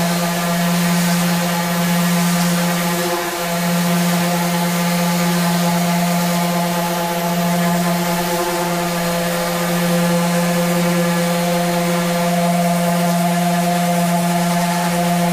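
Electric sander running steadily while sanding a Corian solid-surface cutting board, a constant motor hum whose pitch briefly wavers twice, about three seconds in and again around eight and a half seconds.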